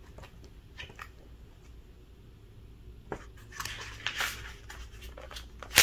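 Pages of a book being handled and leafed through: light paper rustles and soft clicks, busier about three and a half seconds in, then one sharp tap at the end.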